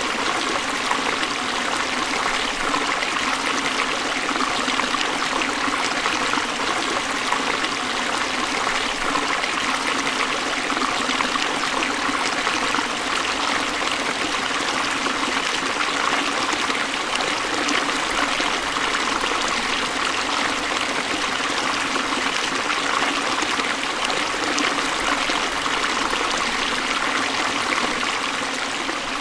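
Forest stream flowing over rocks, a steady rushing and trickling of water.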